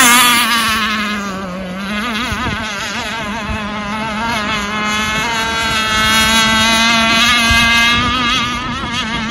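Enforcer Stingray RC hydroplane running flat out across the water, a steady buzzing whine whose pitch wavers as the hull skips over the chop. About a second and a half in, the pitch and level dip briefly, then build back up.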